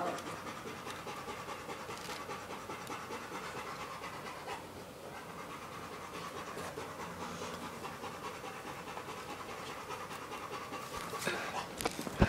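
A dog panting steadily, with a few sharp knocks near the end.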